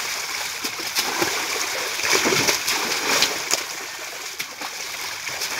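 Many large fish crowded in a drawn-in net thrashing in shallow water: repeated sharp splashes over a steady wash of churning water.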